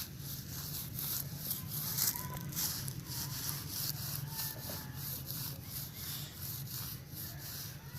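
Scratchy rustling and scraping in repeated short strokes, a few per second, over a low steady hum.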